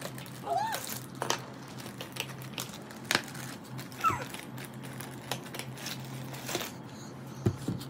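A clear plastic zip-top bag crinkling and rustling in a small child's hands, with the markers inside clicking against one another, in many short irregular bursts. A sharp knock comes near the end.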